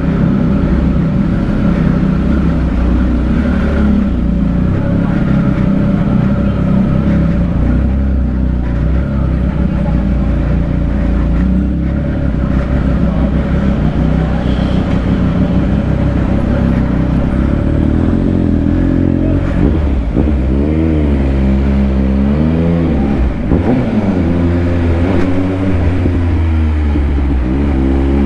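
Triumph Speed Triple RS three-cylinder motorcycle engine with a Scorpion Red Power titanium exhaust, running steadily under way. About two-thirds in, it revs up and drops back several times through gear changes, and it climbs again near the end.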